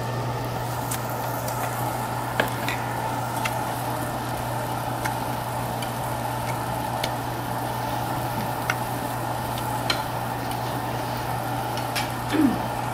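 Pork pieces (samgyeopsal, makchang) sizzling on a coal-briquette tabletop grill, a steady sizzle with scattered small pops of spitting fat over a constant low hum. Near the end comes a brief low grunt.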